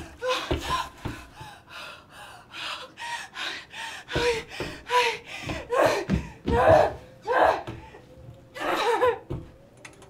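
A woman in labor panting and gasping in quick, rhythmic breaths, about two a second, many with a short voiced catch.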